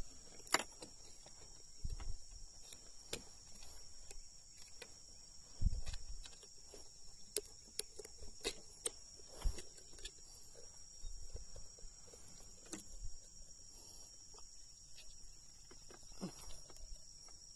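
Scattered clicks and a few dull knocks from handling a landed giant snakehead and metal unhooking tools (lip grip and pliers) on a wooden boat deck, over a steady high-pitched drone.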